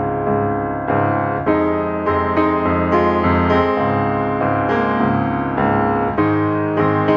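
Background piano music: notes and chords struck at an even, unhurried pace, a new one about every half second.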